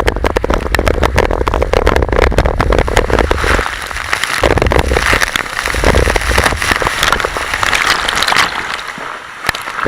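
Water rushing and crackling along a water slide, with heavy wind buffeting on the microphone that drops out briefly a few seconds in and fades near the end.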